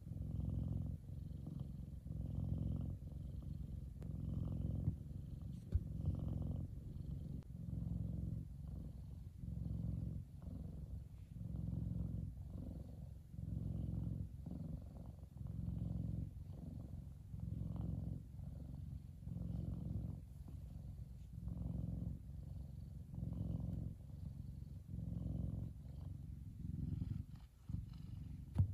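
F2 Savannah cat purring, the low rumble swelling and fading with each breath about every two seconds. A few light clicks near the end.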